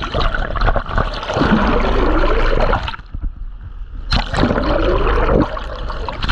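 Seawater surging and gurgling right over the camera's microphone as the camera plunges in and out of the ocean surface. There are two loud bubbly rushes, the first lasting about three seconds and the second starting about four seconds in, with lighter splashing between them.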